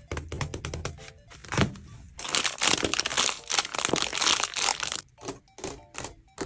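Tape-covered paper squishies and their clear plastic bags being squeezed and handled, making a crackling crinkle. It starts as scattered clicks and becomes a dense crinkling from about two seconds in for some three seconds. Soft music plays underneath.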